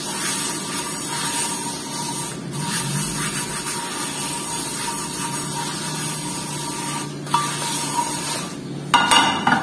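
Paper towel rubbing olive oil around the inside of a frying pan whose non-stick coating has worn off: a steady swishing hiss, with a brief louder rustle near the end.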